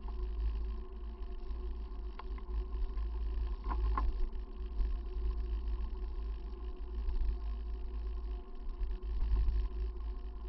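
Wind buffeting and road rumble on the microphone of a camera riding on a bicycle along a tarmac road, a deep rumble that swells and fades, with a steady faint whine and a few light clicks around two and four seconds in.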